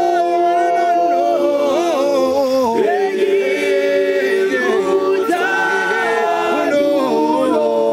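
Male a cappella group singing a gwijo song in close harmony, without instruments, holding long chords that change every couple of seconds.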